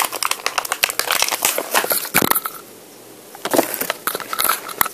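Clear plastic toy packaging crinkling and crackling as it is handled and pulled open: a dense run of crackles that stops about two and a half seconds in, then a few more crackles near the end.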